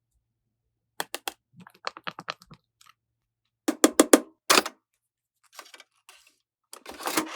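Plastic toy cash register keys being pressed, short runs of sharp clicks with pauses between them, and a louder clatter near the end.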